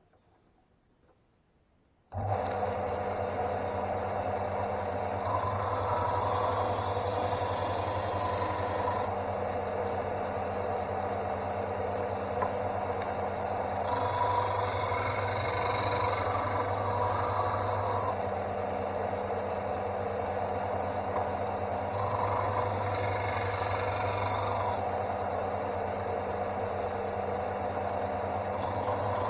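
Draper Storm Force 53005 belt and disc sander starts about two seconds in and runs steadily. A wooden hull piece is pressed against the sanding disc four times, each contact a few seconds of rasping over the motor hum.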